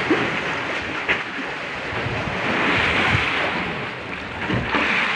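Sea water sloshing and lapping against the side of a small fishing boat, with wind on the microphone; the wash swells about halfway through, and a few light knocks come through.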